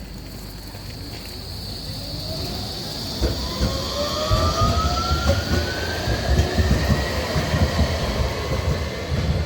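Tram pulling away, its traction motors giving a whine that rises steadily in pitch as it gathers speed, over a rumble of wheels on rails that grows louder from about three seconds in. A steady high-pitched squeal or hiss sits above throughout.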